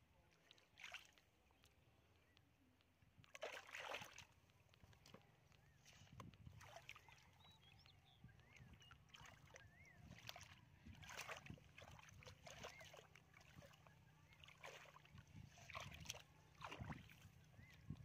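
Hands sloshing and splashing in shallow muddy water, faint and irregular, loudest about four seconds in and again near the end.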